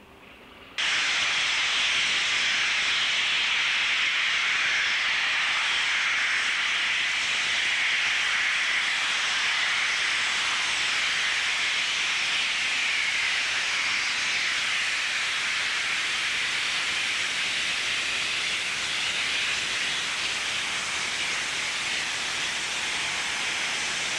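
DB class 23 steam locomotive 23 105 blowing off steam: a steady, loud hiss that starts suddenly about a second in, with no exhaust beats.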